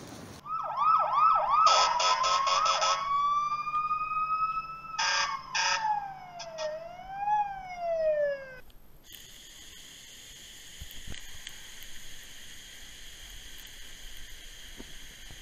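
Toy fire truck siren: quick rising yelps, then a long rising wail and a falling-and-rising sweep, twice overlaid with short harsh horn-like blasts; it cuts off suddenly about nine seconds in. A small electric water pump's steady whine follows as the truck's nozzle sprays water.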